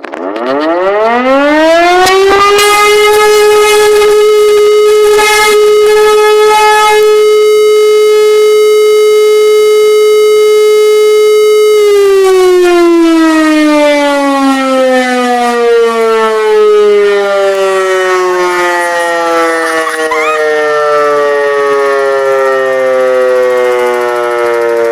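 Civil defence siren sounding a test, recorded close up and loud: it spins up from silence to a single steady tone within about two seconds, holds it for about ten seconds, then winds down in a long, slowly falling glide.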